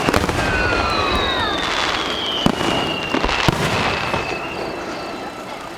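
Fireworks crackling densely, with several whistling tones that fall in pitch and a couple of sharp bangs in the middle, dying away toward the end.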